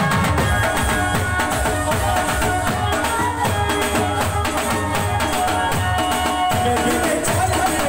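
Live band playing an instrumental stretch of a Gujarati folk-style song: a keyboard melody over steady, busy drumming on steel-shelled drums and a drum kit.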